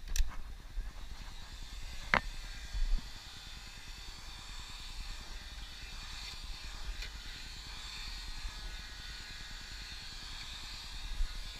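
Handheld electric heat gun running with a steady hiss, aimed at aluminium roof flashing. A single sharp knock comes about two seconds in.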